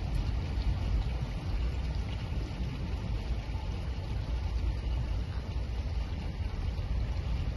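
Steady low rumble and rushing water from a vehicle moving through deep floodwater.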